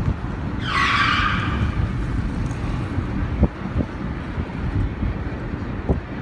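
Car driving, with a steady low rumble of road and engine noise heard from inside. About a second in comes a brief hiss of tyres on the road.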